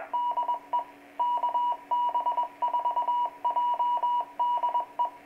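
Ham radio repeater identifying itself in Morse code through the transceiver's speaker: a single mid-pitched tone keyed on and off in dots and dashes.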